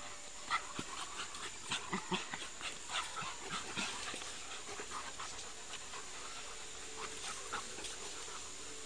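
Dogs panting as they play together, with a busy run of short clicks, scuffles and small vocal sounds that thins out after about four seconds.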